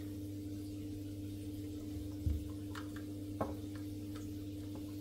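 A few light plastic clicks and knocks as a small plastic controller box is pushed and slid against the cabinet wall onto its latch, over a steady low hum.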